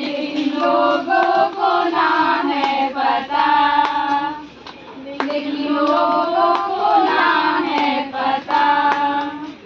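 A group of women singing a song together, with hand claps keeping time. The singing breaks off briefly about five seconds in and then resumes.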